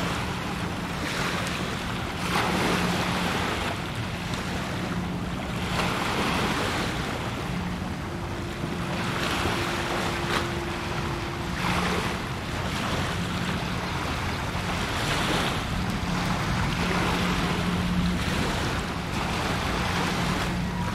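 Bay water lapping and washing against the shore in rising and falling surges every second or two, with wind on the microphone. A low steady hum runs underneath.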